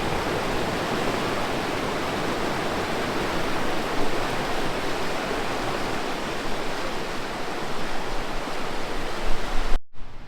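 River water rushing, a steady loud wash of noise, with a few louder low bumps near the end.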